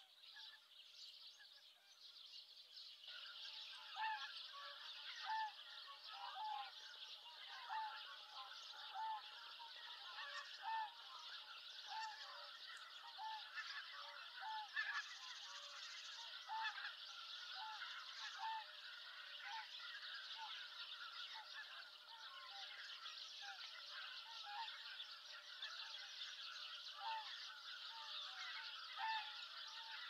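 A flock of greater white-fronted geese calling, with many short honking calls overlapping. The calls grow denser about three seconds in, over a steady high hiss.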